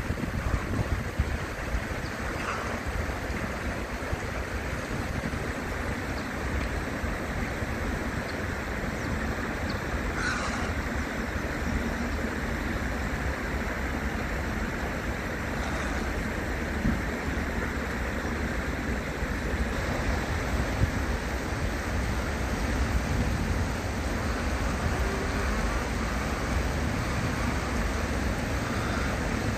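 Steady rush of a shallow flowing stream with a low rumble underneath. A few faint brief sounds rise above it, the clearest about ten seconds in.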